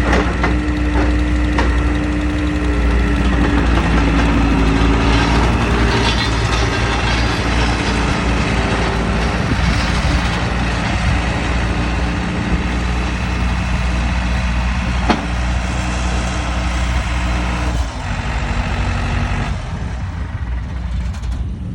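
Diesel engine of a 2007 New Holland C190 skid steer track loader running steadily, with a held whine over it in the first few seconds; it drops a little in level about four seconds before the end.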